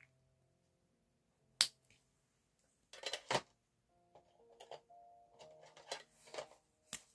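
Plastic marker cap clicking shut, then markers clicking and clattering against each other as they are handled in a pen case, over faint background music.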